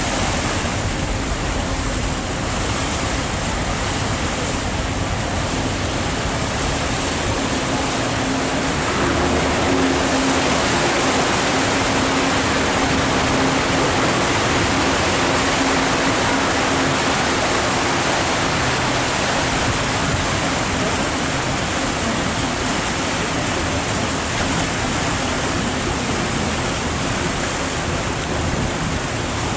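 Steady rushing of water churned up in the wake of a river tour boat under way. About nine seconds in the rushing grows louder and a low steady hum joins it for several seconds before fading back.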